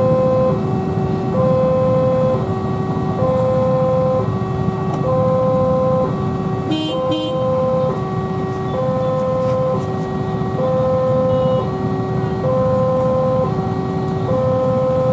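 Railway level-crossing warning alarm sounding continuously: an electronic two-tone signal alternating high and low, each note about half a second long, over road traffic. About halfway through there are two short high beeps.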